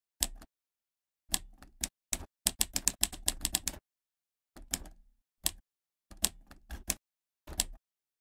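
Typewriter typing sound effect: sharp key clicks in uneven bursts, with a fast run of about a dozen strokes between two and four seconds in and scattered single strokes either side, separated by dead silence.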